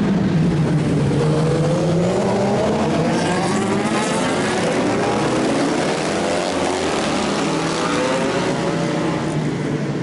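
Several racing motorcycle engines at high revs passing close by, their pitches rising and falling as the bikes go past and accelerate.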